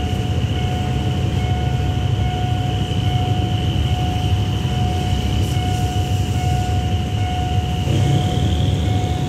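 Passenger train coaches rolling past on the track with a steady low rumble. Over it run a steady high whine and a faint repeating beep from the level-crossing warning signal.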